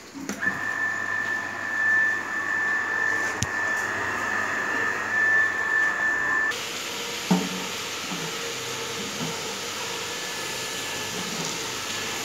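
Water filter plant running during backwash: a steady high whine over rushing water. About six seconds in the whine stops and a broad hissing rush of water carries on.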